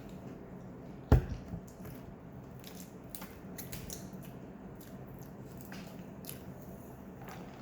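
Handling sounds of a meal: one sharp knock about a second in, as of something set down hard on a table, then scattered light clicks and rustles of food and packaging.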